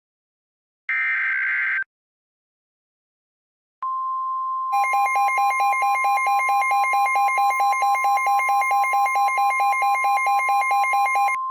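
Emergency Alert System signal: the last of the digital header data bursts, a short gap, then the steady single-pitch weather radio alert tone. About a second later a harsh alternating attention tone joins it, pulsing about seven times a second, and drops out near the end, leaving the steady tone.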